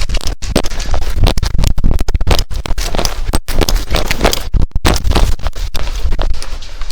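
Rapid, irregular footfalls and gear rattling with rubbing and rumble on a body-worn action camera microphone, as the player runs.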